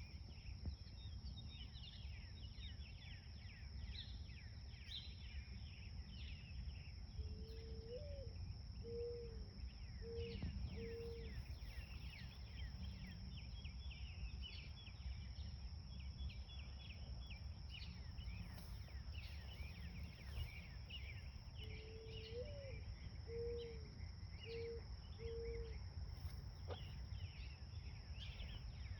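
Outdoor garden ambience: many small birds chirping over a steady, high-pitched insect trill. Twice, a low-pitched bird call of about five hooting notes, the first sliding up, stands out.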